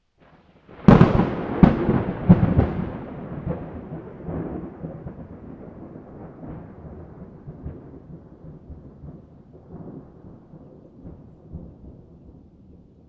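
A close thunderclap: a few sharp cracks in quick succession about a second in, then a long rolling rumble that slowly fades away.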